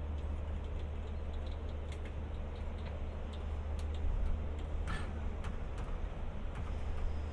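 Steady low diesel rumble of the standing Indian Pacific train idling, with scattered light ticks and clicks over it, the clearest about five seconds in.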